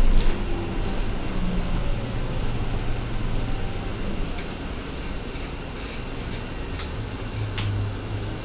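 Cabin ride noise of a MAN Lion's City A21 city bus under way: a steady low engine drone under road noise, with scattered rattles and clicks from the body and fittings and a louder knock at the very start.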